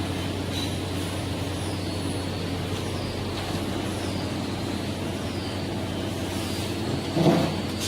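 Magnetic iron-filings separator for powder running with a steady mechanical hum. A single louder knock comes near the end.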